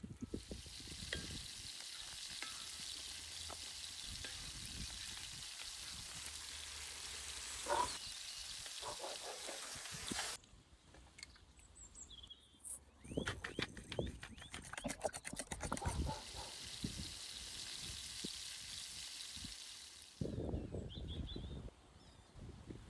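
Food sizzling in hot fat in a pan: a steady hiss that stops abruptly about ten seconds in and gives way to a run of knocks and clatter, then sizzles again for a few seconds before more knocking near the end.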